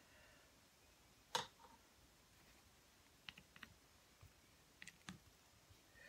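Near silence: room tone with a few small clicks and taps, the sharpest about a second in and a handful of fainter ones later.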